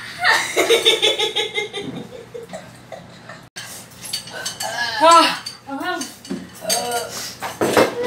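Several people laughing and exclaiming around a meal table, with clinks of dishes and cutlery. There is a quick run of repeated laughing pulses in the first couple of seconds and an abrupt break about halfway through.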